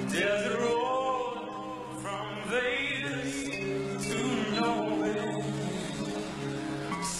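A male singer sings a slow ballad live into a handheld microphone, drawing out long, bending phrases over sustained backing chords.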